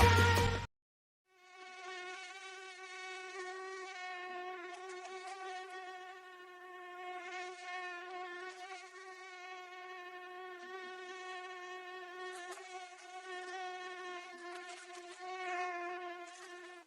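Mosquito in flight, its wingbeat whine a steady high-pitched hum that wavers slightly in pitch and loudness. It begins about a second in, after a short silence.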